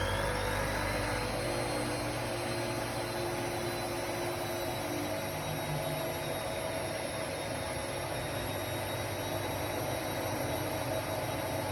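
Ariston Margherita 2000 AL 108 D washer-dryer running with a steady whir. A high motor whine rises in pitch during the first second, then holds steady.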